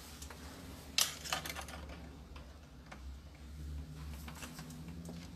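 Hands handling fabric and setting it under a sewing machine's presser foot: a sharp click about a second in, then a few lighter clicks and ticks, over a low steady hum.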